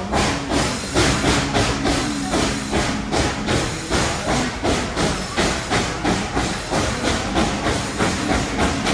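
Narrow-gauge steam locomotive working ahead of an open coach, its exhaust chuffing in an even rhythm of about three to four beats a second over a steady hiss of steam.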